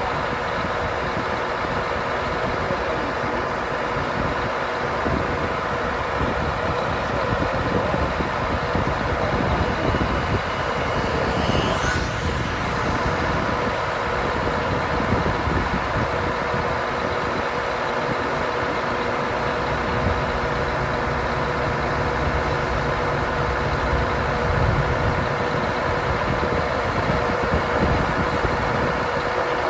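Scania R144-530's V8 diesel running steadily, driving the hydraulics of the Effer 108 crane as the boom moves, with a steady whine over the engine.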